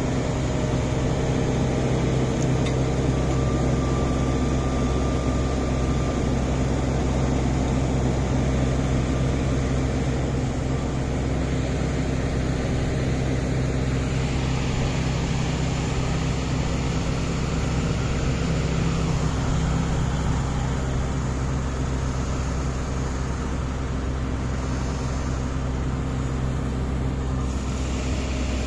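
Massey Ferguson tracked combine harvester's diesel engine running at a steady speed, a continuous low drone.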